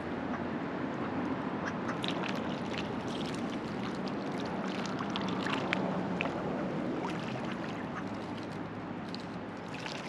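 River water flowing steadily around a floating raft, with many small splashes and trickles through the middle of the stretch.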